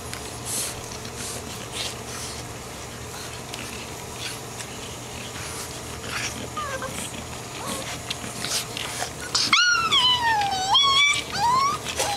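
American Bulldog puppies play-fighting, with scuffling and small squeaks. About nine and a half seconds in, one puppy gives a loud, long wavering whine that dips and rises again, then a couple of short rising whimpers.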